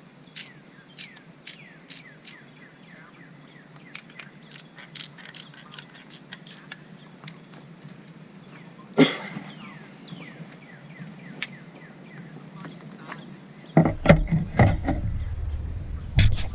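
Campfire crackling with scattered sharp pops, one loud crack about halfway through. Near the end, loud low rumbling and knocks take over.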